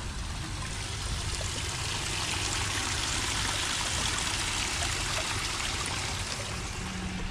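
Running water, a steady rushing hiss that grows louder through the middle and eases off again.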